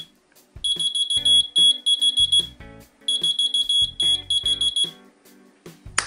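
Whistle-activated key finder keyring beeping: rapid high-pitched chirps, about six a second, in two bursts of roughly two seconds each. It is the finder's alarm set off by surrounding sound rather than a whistle, and this cheap unit is prone to such false triggers.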